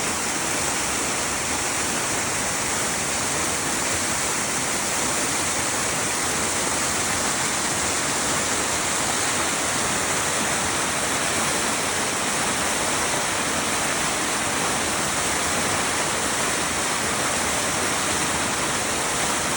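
Waterfall, its water falling and splashing in a steady, even rush.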